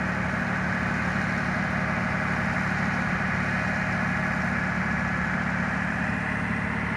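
A vehicle engine idling steadily, an even low hum that does not change.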